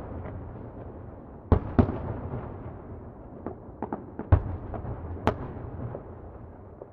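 Distant fireworks exploding: a low rolling rumble, then from about a second and a half in, a loose run of sharp bangs and pops, the loudest near the end.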